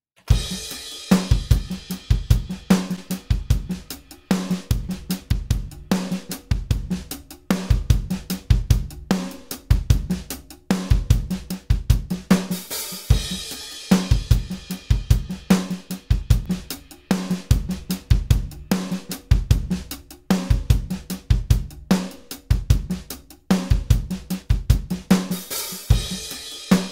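Sampled acoustic drum kit (EZdrummer 3) playing a steady groove of kick, snare, hi-hat and cymbals at 150 BPM. It runs through the Xtressor Nuke limiter as an A/B test of its sidechain high-pass filter: with the filter off the limiting pulls low end out of the kick, and with it raised the kick keeps more of its low end.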